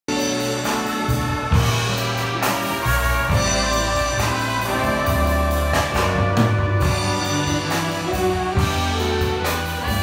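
A big band playing live: trumpets, trombones and saxophones over bass and drums, with several cymbal or drum hits cutting through.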